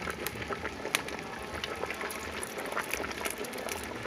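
Large pot of beans boiling hard over a wood fire: steady bubbling with many small pops and crackles throughout.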